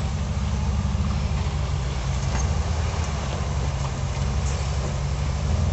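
Off-road vehicle engine running steadily at low revs, a deep even drone, while the vehicle crawls over boulders.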